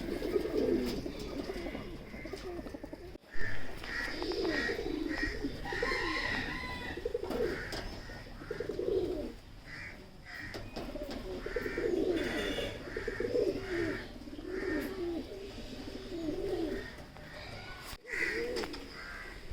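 Domestic fancy pigeons cooing, one rolling coo after another, with short higher chirps from birds mixed in.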